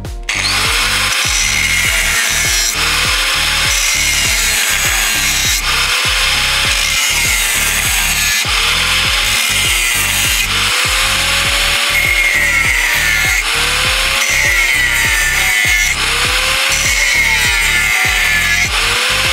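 Angle grinder with a thin cutting disc slicing grooves into a steel plate. It starts cutting just after the start and runs steadily under load, its pitch sagging and recovering every second or so as the disc is pressed in. Background music plays underneath.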